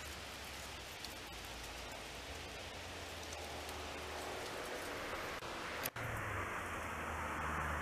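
Steady outdoor background hiss with a few faint ticks, broken by a brief dropout about six seconds in.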